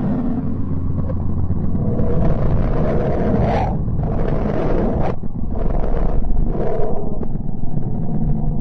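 Eerie 'planet sound' space recording: a deep, steady rumble with several swelling hissing surges, the first two cutting off sharply.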